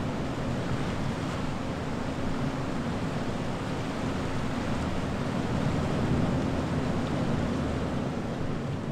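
A car moving slowly along a road: steady rushing road and wind noise with a low, steady engine hum.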